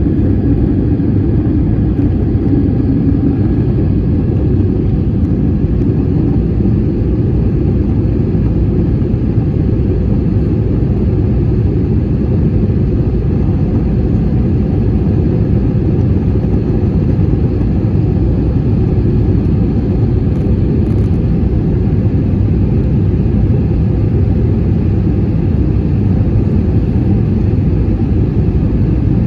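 Airbus A320-200 cabin noise in flight, heard from inside the cabin: a loud, steady low rumble of the engines and airflow.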